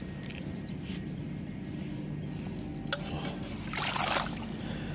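Lake water sloshing and dripping as a mesh keep net holding live fish is lifted out of the water, with a sharp click near three seconds in and a louder rush of splashing water about four seconds in.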